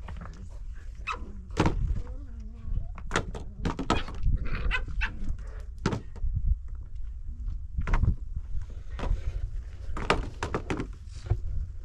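Irregular knocks and thuds over a steady low rumble, with a brief wavering call about two seconds in.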